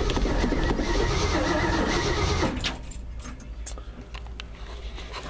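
Starter cranking the 1974 Ford F250's 390 V8, turning it over without it catching, which the owner puts down to maybe not enough gas in the carburetor. The cranking stops suddenly about two and a half seconds in, leaving a few faint clicks.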